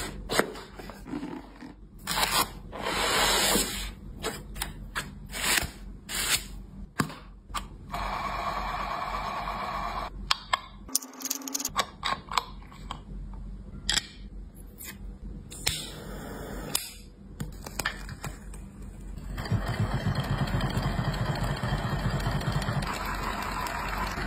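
Handling sounds from unboxing and assembling a small metal model hot-air engine: cardboard scraping and rustling, with sharp clicks and taps of metal parts being fitted. About twenty seconds in, a steady sound with a fast pulse sets in and continues.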